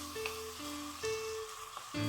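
Chicken and sliced shallots sizzling as they are sautéed in hot oil in a pan, with a brief click about a quarter second in, under background music with a simple repeating melody that falls away near the end.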